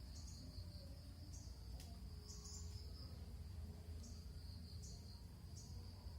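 Faint insects chirping: a steady high trill with short higher chirps repeating about once a second, over a low rumble.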